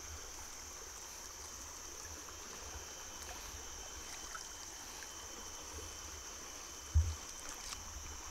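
River water flowing steadily, with a dull low bump about seven seconds in.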